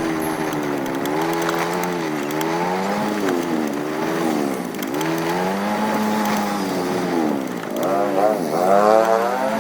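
Vehicle engine running on the move, its pitch rising and falling with the throttle, with a couple of quick revs near the end.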